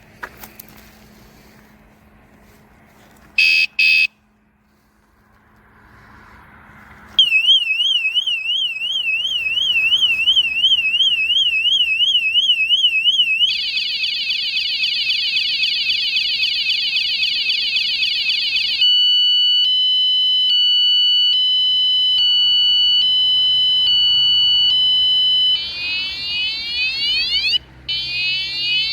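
Bike alarm going off: two short beeps, then a loud electronic siren that steps through its patterns, first a warbling wail, then a fast trill, then a high-low two-tone, then rapid sweeping chirps.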